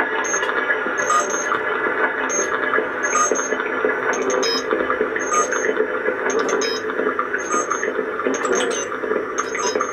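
Electronic noise music from a Casio keyboard run through an effects pedal: a dense, steady droning wash with short high chirps flickering in about once or twice a second.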